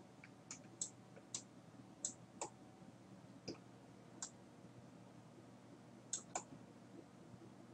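Computer mouse buttons clicking, about nine sharp clicks at irregular intervals, some in quick pairs, over a faint steady hum.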